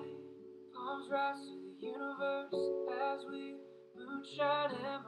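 Background music: plucked guitar with a singing voice, in phrases of about a second with held notes between them.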